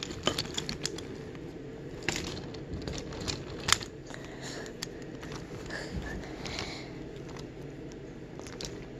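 Toy trains being handled by hand on wooden track: scattered faint clicks and taps over low rustling.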